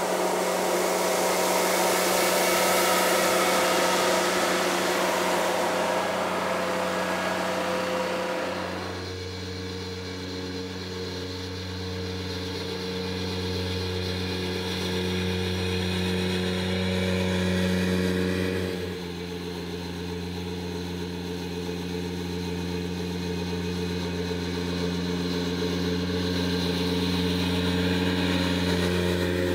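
Ventrac compact tractor engine running steadily while its HB580 power broom's rotating brush sweeps. There is a loud hissing sweep of grit for the first third, then mainly the engine hum.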